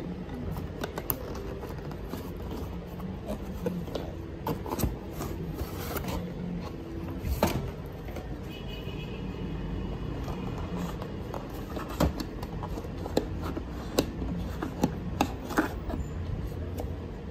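Cardboard packaging and a plastic CCTV camera being handled while the camera is pulled out of its box: scattered taps, knocks and scrapes of cardboard and plastic, several sharper knocks in the second half. A steady low hum runs underneath.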